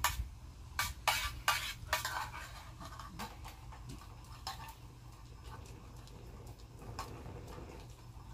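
Metal utensil clinking and scraping in a metal canteen cup, with several sharp knocks in the first two seconds and lighter ones after.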